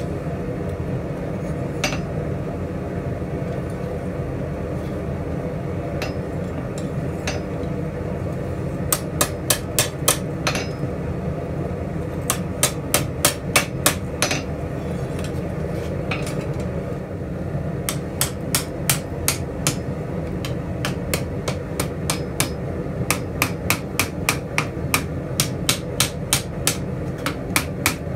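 Blacksmith's hand hammer striking steel on an anvil, forging a ladle and spatula: sharp metallic blows in several runs of quick strikes, the longest through the last ten seconds. A steady low rumble runs underneath.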